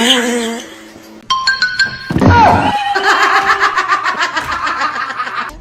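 Music with a brief voice, and a dull thud about two seconds in.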